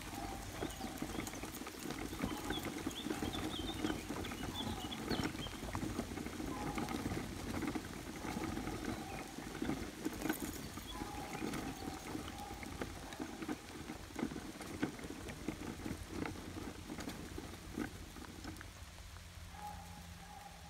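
Footsteps and small dogs' paws on a dry, leaf-littered woodland dirt path: an irregular crunching patter that dies away about two seconds before the end.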